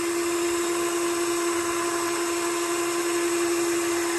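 A motor's steady whine, one constant mid-pitched tone over an even hiss, running without change.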